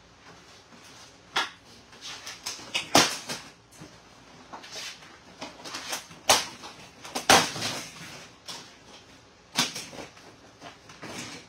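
Old, decayed liner being torn and pried off the inside of a Vendo 81 soda machine door, breaking away in pieces: irregular tearing, scraping and knocking, with several sharp louder strokes.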